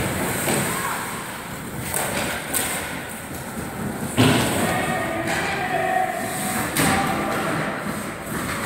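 Ice hockey play close by: puck, sticks and players knocking against the boards and ice in a string of sharp thumps, the loudest about four seconds in, over the rink's background noise.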